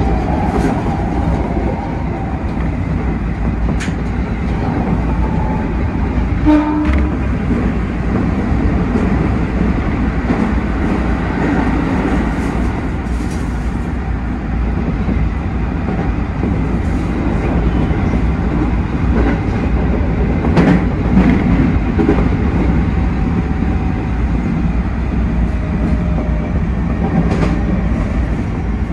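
Keikyu 1000 series electric train running at speed, heard from the driver's cab: a steady rumble of wheels on rail with scattered rail-joint clicks. A brief pitched tone sounds about seven seconds in.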